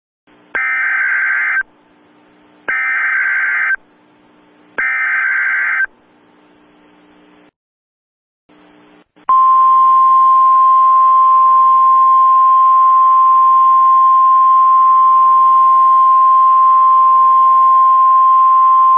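Emergency Alert System signal: three roughly one-second bursts of SAME header data, a harsh buzzy digital screech, then after a short gap one steady high attention tone a little above 1 kHz that holds for about ten seconds, over a faint hiss.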